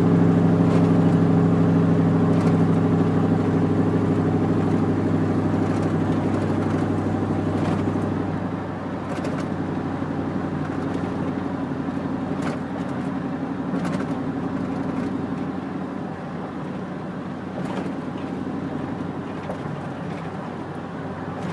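Chevrolet Silverado's 4.8-litre V8 droning steadily at highway cruise, heard from inside the cab along with road noise. About eight seconds in, the engine note fades and the overall sound drops as the truck slows from about 60 to about 50 mph.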